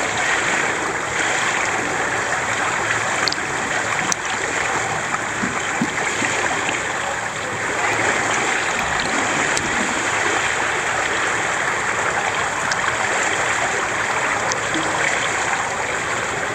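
Swimming-pool water lapping and sloshing right at the microphone, which sits at the water surface, over a steady hiss. Now and then a small splash, as a child slaps the water with its hands.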